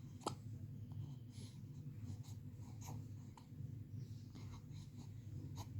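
Faint scratchy rustling with a few scattered short clicks over a low steady hum.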